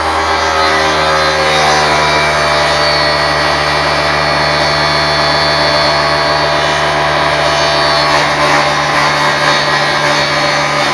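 Table saw with a fine-tooth Diablo blade running steadily and cutting slowly through a quarter-inch plexiglass (acrylic) sheet. A constant motor hum sits under the hiss of the blade in the plastic, which sets in at the start, with a higher whine for a few seconds in the middle.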